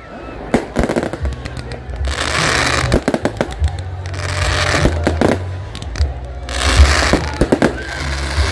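Aerial fireworks display: a rapid series of sharp bangs from shells bursting overhead. Two longer stretches of dense hissing crackle come about two seconds in and again near seven seconds in.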